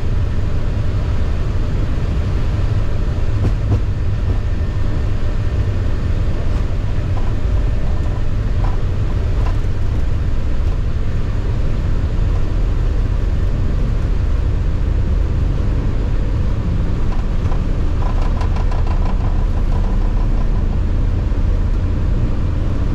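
Steady low rumble in the cockpit of a Boeing 737-800 with its CFM56-7B jet engines running. A brief, rapid rattling buzz comes in about 18 seconds in.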